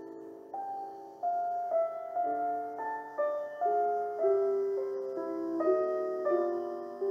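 Background piano music: a held chord fading out, then a melody of single notes struck about twice a second, each left to ring under the next.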